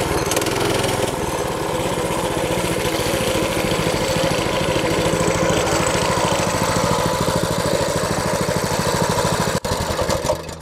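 Mini bike's 6.5 hp clone engine, a small single-cylinder four-stroke, running steadily under way. The sound breaks off briefly near the end.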